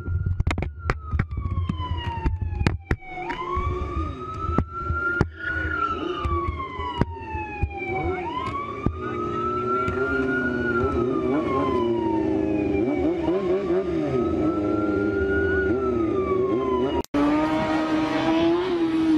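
Police siren wailing in slow rising-and-falling sweeps, with a run of sharp knocks and clatter in the first few seconds. Near the end it breaks off suddenly and a motorcycle engine takes over.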